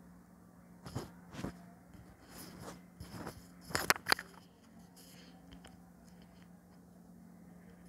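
Pen writing on paper on a clipboard: a few short scratchy strokes and clicks, the sharpest a pair about four seconds in, over a low steady hum.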